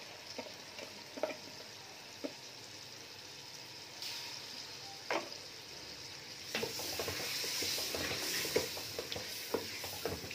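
Chicken and masala with freshly added onion-garlic-ginger paste sizzling in oil in a pressure cooker while a wooden spoon stirs it, knocking and scraping against the pot. The sizzle grows louder about four seconds in and again after six, and the spoon knocks come more often from then on.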